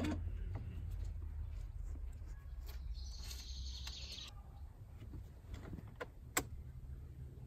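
Plastic wiring connectors being handled and plugged into the back of an aftermarket head unit: a few sharp clicks over a low steady rumble, the loudest click about six seconds in. A brief hiss about three seconds in.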